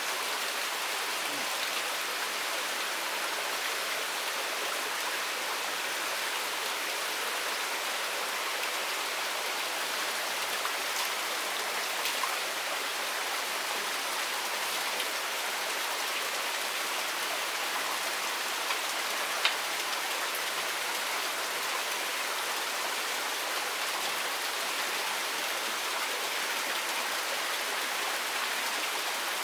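Steady, even hiss of water, as of rain or a running stream, with a few faint single ticks, the sharpest about two-thirds of the way through.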